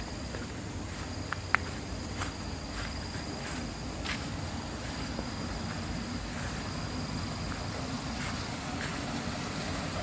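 Insects calling steadily outdoors, one thin unbroken high tone over a low rumble, with a single sharp click about one and a half seconds in.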